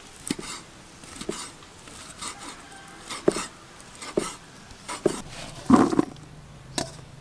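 Steel cleaver chopping cow intestine on a wooden chopping board, about one chop a second. Shortly before the end, a louder clatter as the chopped pieces drop into a plastic bowl.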